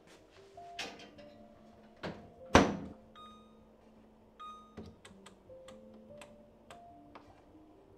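Microwave oven being loaded and set: two thunks about two seconds in, the louder one just after, as the bowl goes in and the door shuts. Then the control panel beeps and the dial clicks as a cooking menu is selected, over soft background music.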